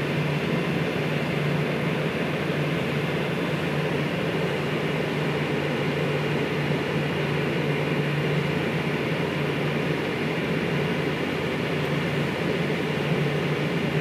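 Steady machinery drone of a large ship underway, with a constant low hum and an even rushing noise over it.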